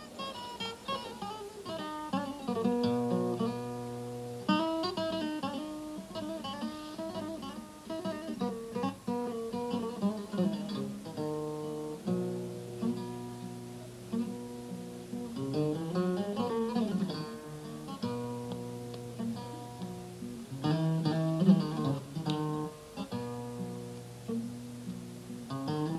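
Acoustic guitar played solo: quick runs of picked notes over low bass notes, with a fast scale running up and back down about two-thirds of the way through.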